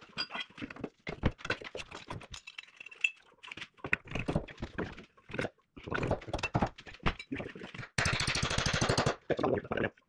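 Irregular metal knocks and clinks of hand tools working on a steel boom pin and its bushing joint, with a fast, loud rattle lasting about a second near the end.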